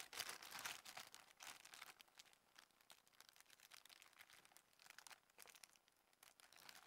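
Faint rustling and light clicking of cast resin model-kit parts being picked up and set down among their plastic packaging. The ticks are busiest about the first second and thin out toward the end.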